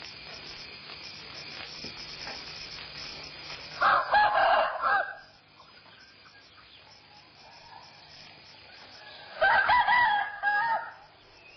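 Rooster crowing twice, about four seconds in and again near the end, each crow lasting about a second, over a faint steady background hiss.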